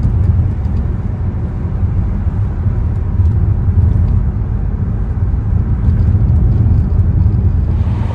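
Steady low rumble of a car driving along a road, with engine and tyre noise heard from inside the moving car.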